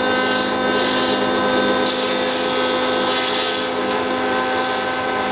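Benchtop thickness planer running with a steady hum and hiss as thin ash strips are fed through to bring them down to thickness.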